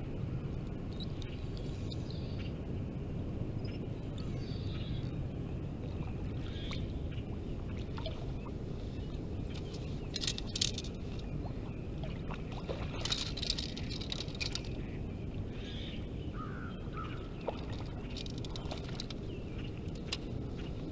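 A hooked carp splashing at the water's edge in short bursts, about ten and again about thirteen seconds in, over a steady low rumble, with a few faint bird chirps.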